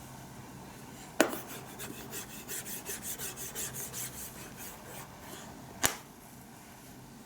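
A sharp click, then quick scratchy rubbing strokes, about three a second, for a few seconds, and another sharp click near the end.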